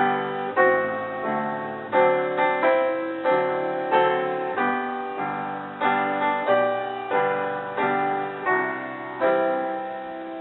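Piano music: chords and notes struck about every half second, each dying away before the next.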